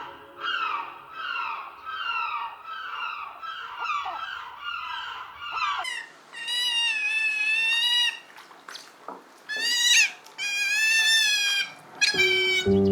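Animal calls: a quick series of short, falling calls about two a second, then several longer, high, wavering cries. Music comes back in near the end.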